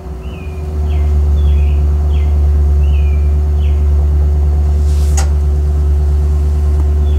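A recorded muscle-car engine sound ('USB Muscle Car Rev') playing through the Tesla Model Y's Boombox external speaker: a loud, steady, deep engine rumble that swells about a second in and then holds.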